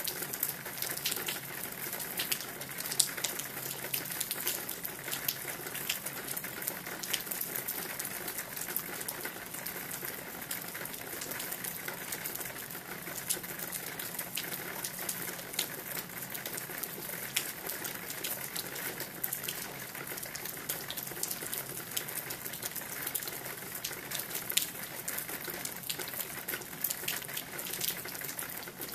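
Steady rain falling, a constant hiss scattered with many sharp ticks of individual drops striking.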